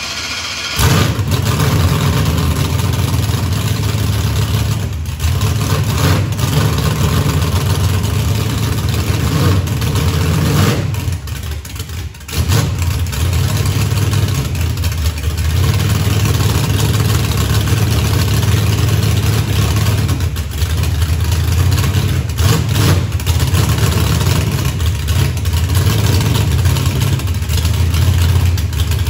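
Race car engine catching about a second in and then running loudly and steadily, with a brief drop in level around twelve seconds in. It runs with its crank sensor just reconnected after it had been found unplugged.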